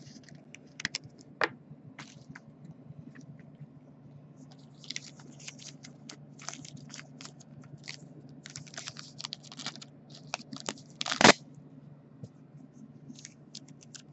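Clear plastic card sleeve and rigid plastic card holder handled between fingers: scattered small clicks, crinkles and scrapes, with one sharp loud click about eleven seconds in, over a faint low steady hum.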